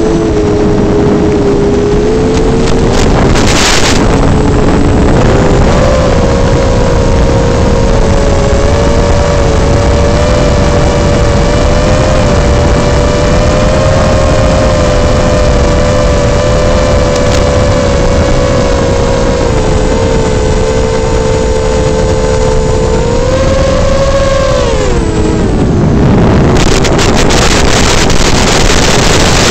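Flywoo Explorer LR micro quadcopter's motors and propellers whining steadily over wind noise in flight, the pitch shifting with throttle. The pitch drops sharply a few seconds before the end as the throttle comes off, and a louder hiss takes over near the end.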